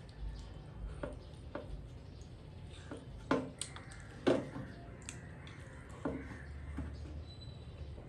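A person eating with their hands: wet mouth smacks and fingers being licked. There are about six separate short smacks, the loudest about four seconds in.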